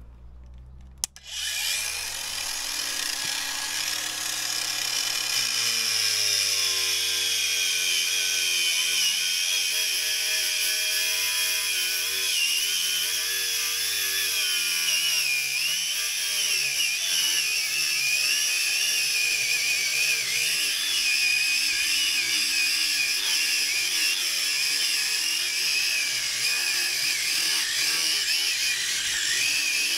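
Parkside angle grinder with a replacement motor starting up about a second in, then cutting through a car tyre with a cut-off disc. Its high whine wavers and dips in pitch as the cut loads the motor.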